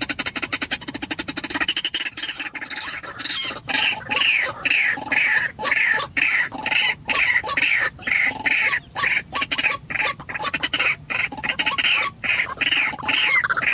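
White-breasted waterhen calling: a fast, rattling croak gives way about two seconds in to a monotonous run of repeated "ruak-ruak" notes, about two a second.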